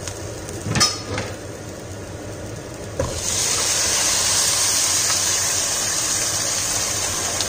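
Boiling water poured into a hot pot of fried rice: a loud, steady sizzling hiss that starts suddenly about three seconds in as the water hits the hot pan. A short clatter about a second in.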